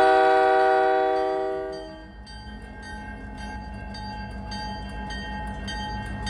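Diesel freight locomotive blowing its air horn, a steady multi-note chord that fades out about two seconds in. After that comes the locomotive's low engine rumble as it approaches, with a bell ringing rapidly and evenly.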